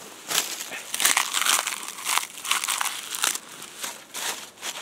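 Dry birch bark crinkling and rustling in irregular bursts as it is handled and stuffed into a small twig stove as fire-starting tinder.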